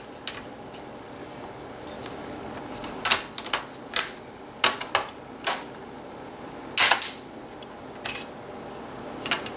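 Plastic screen bezel of an HP ProBook 4440s laptop being pried off by hand, its snap tabs popping loose from the lid in a string of sharp clicks and snaps, the loudest a double snap a couple of seconds before the end.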